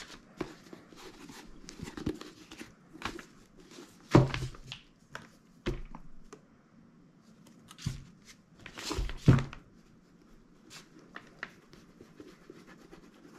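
Handling noises of a leather boot and a plastic bottle of leather conditioner on brown paper: scattered light clicks, knocks and paper crinkling, with louder thumps about four seconds in and again around nine seconds.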